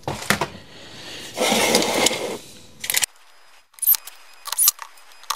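Workbench handling noises: a few knocks and about a second of scraping or rustling, then several sharp metallic clinks of small screws and tools being handled in a metal parts tray.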